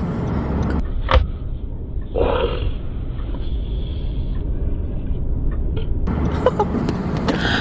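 Steady low rumble of a car driving, heard from inside the cabin, with a sharp click about a second in.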